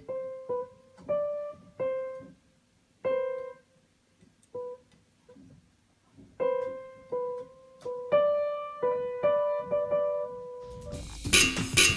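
Upright piano notes struck one or two at a time by a cat's paws: scattered single notes near the middle of the keyboard with irregular pauses, several overlapping about eight seconds in. Just before the end, background music with a drum beat cuts in.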